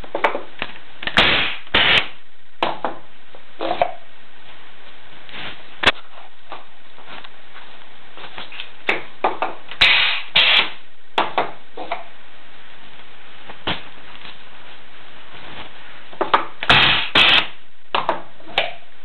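A small bench-top pneumatic press cycling three times, each time a pair of short loud bursts of air and knocking as it presses powder in a cylindrical mould. Between cycles come lighter taps, scrapes and clicks of the mould being packed and handled.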